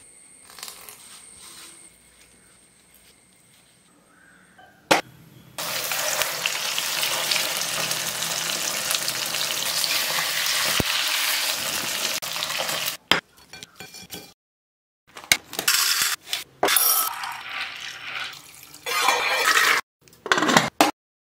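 Fish fillets sizzling loudly as they shallow-fry in hot oil in a kadai; the sizzle starts suddenly about five and a half seconds in and cuts off about seven seconds later. Before it come a sharp click and faint handling sounds; after it, short bursts of kitchen clinks and clatter.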